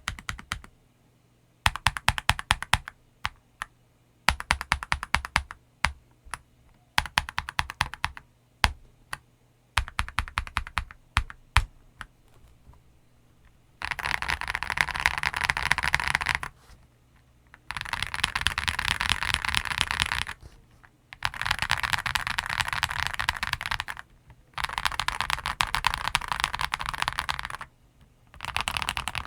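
Mechanical keyboard with CS Vintage White linear switches and MT3 keycaps being typed on. For the first dozen seconds the keystrokes come separately in short runs with pauses between them. After that comes fast, continuous typing in bursts of a few seconds with brief pauses.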